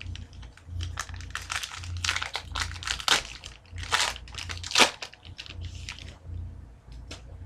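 A hockey card pack's foil wrapper crinkling and crackling in irregular bursts as it is handled and opened, the loudest crackles about four and five seconds in, then dying away.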